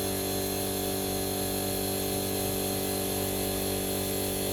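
A steady machine hum made of several fixed tones at an even level.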